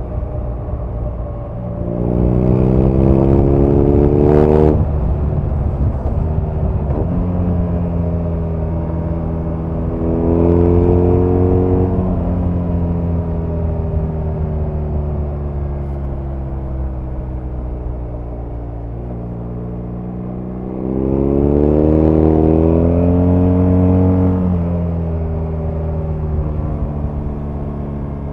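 BMW R nineT's air/oil-cooled 1170 cc boxer twin under way, heard from the bike. It accelerates with rising pitch about two seconds in and cuts off sharply near five seconds. It pulls again around ten seconds, then winds down slowly off the throttle before a third acceleration just after twenty seconds.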